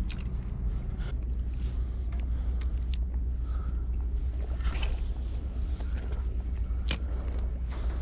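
Steady low wind rumble on the microphone, with a few sharp clicks and taps from handling the spinning rod and reel, the loudest near the end.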